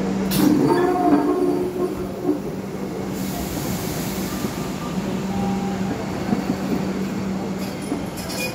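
Vande Bharat Express electric trainset rolling slowly past, a steady hum over wheel-and-rail noise, with faint wheel squeal in the first second or so and a brief high hiss about three seconds in.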